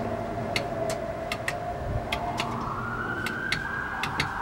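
Mercedes-Benz Sprinter's electric door system working as its switch is held with the ignition on and the engine off: a steady whine and scattered clicks, then about two seconds in a whirring that rises and holds. The door fails to close, which the driver puts down to needing more than 12 volts, from the engine running.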